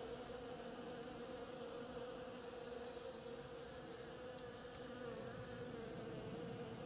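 Bees buzzing steadily as they forage among the flowers of a Boston ivy vine: a continuous hum of several overlapping wingbeats.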